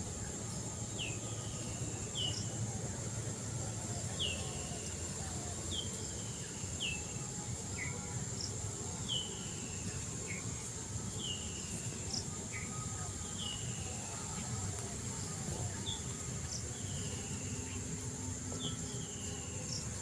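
Outdoor insect chorus, a steady high-pitched drone, with a bird repeating a short downward-slurred call about every one to two seconds, over a low steady background rumble.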